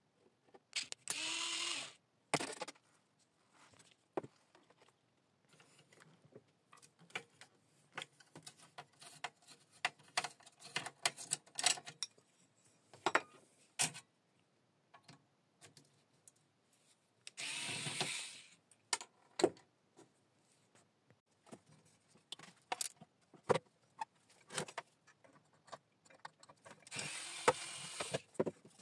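Parkside cordless electric screwdriver running in three short bursts of a second or two each, unscrewing parts of a three-phase electricity meter. Between the bursts are small clicks and clatter of metal parts and screws being handled.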